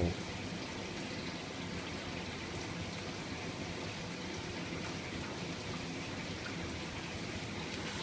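Esatto EDW6SL dishwasher running with its door closed, water spraying and splashing steadily inside, in what is taken to be a rinse stage.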